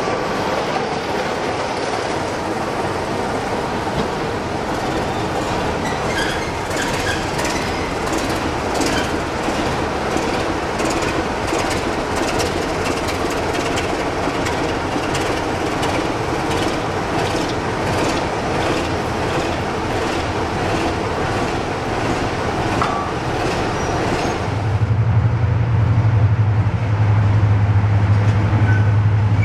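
Class 55 Deltic diesel locomotive running as it moves slowly along the line, with a regular run of wheel clicks over the rail joints. Near the end a deep steady drone comes in and the sound grows louder.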